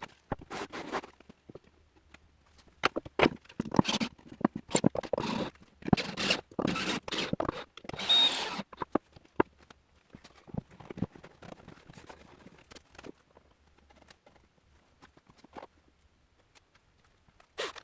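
Irregular scraping and rubbing strokes, each a second or less, with light clicks and knocks between them and quiet gaps; the strokes thin out in the second half.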